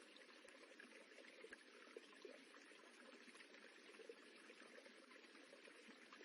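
Faint, steady rippling of running water, with small splashes and droplet sounds scattered through it.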